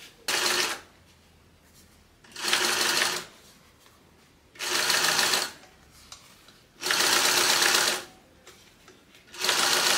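Sewing machine topstitching a seam beside a zipper, running in five short bursts of about a second each with brief pauses between them.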